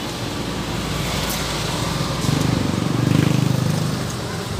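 Kawasaki Barako II's single-cylinder engine running with a steady low hum. It swells louder about halfway through, then settles back.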